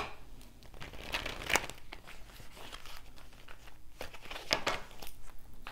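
Tarot cards being handled and shuffled by hand: irregular papery rustles and sharp card flicks, with louder snaps about a second and a half in and again near the end.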